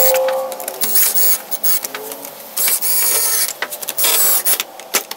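Cordless drill with a Phillips bit driving screws into a keyboard's plastic case in several short bursts. Its clutch is set to slip early, so it clicks as each screw seats.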